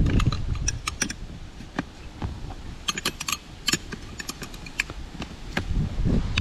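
Small metal objects clinking and clicking as they are handled: an irregular run of short, sharp ticks and clinks, thickest in the middle, over a low rumble of wind on the microphone.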